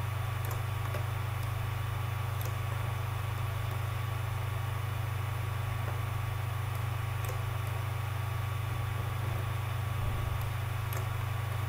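Steady low background hum with a faint high whine over it, and a few faint clicks.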